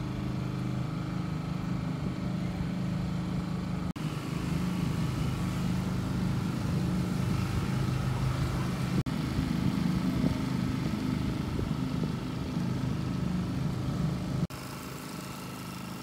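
Sailboat's engine running steadily, propelling the boat under power with the sails furled. The sound breaks off briefly about four and nine seconds in and turns quieter near the end.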